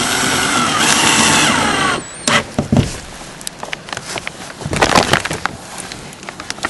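A handheld power tool runs hard for about two seconds, its pitch wavering under load as it cuts, then stops suddenly. A few sharp knocks and clatter of handling the workpiece follow.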